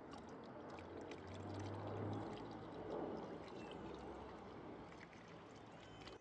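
Coolant being poured steadily from a plastic jug through a plastic funnel into a car's coolant expansion tank.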